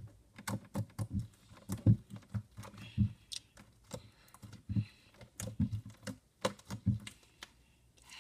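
Hands kneading and squeezing sticky slime, giving irregular wet clicks and squelches, a couple a second, the loudest about two seconds in.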